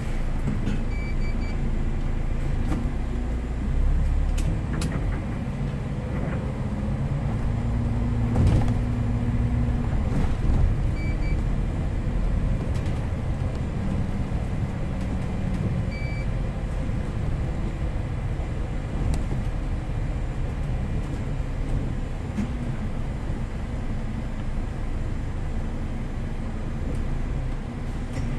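MAN Lion's City city bus driving, heard from the driver's cab: a steady low engine and road rumble. There are short electronic beeps about a second in and twice more later, plus occasional clicks and knocks.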